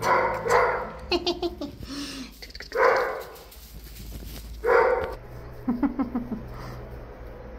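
A dog barking: three loud barks spread over the first five seconds, with softer short noises between them.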